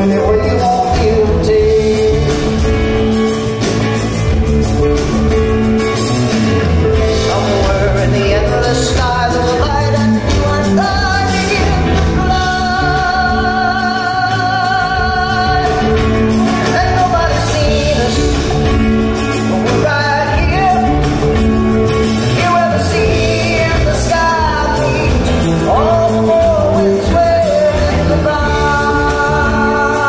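Live band playing a country-rock song: drum kit, electric bass, acoustic guitar and congas, with singing over them.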